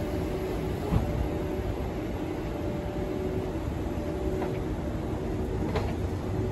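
Two KiHa 110 diesel railcars with their engines shut off, hauled slowly past by an EF81 electric locomotive: a steady low rumble of wheels on rail with a steady hum, broken by a few sharp clicks of wheels over rail joints, about a second in and again near the end.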